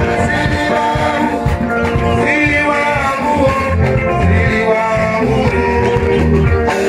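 Upbeat music with a singing voice over a steady bass beat.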